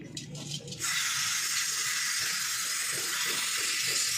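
Aerosol can of carburetor cleaner spraying through its straw into a fuel-injection throttle body to wash off carbon: a few short spurts, then a continuous hiss from about a second in.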